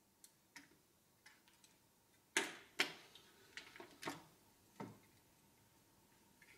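A string of light clicks and taps from small hand tools and electronic parts being handled on a workbench during soldering. The two loudest taps come close together a little past two seconds in.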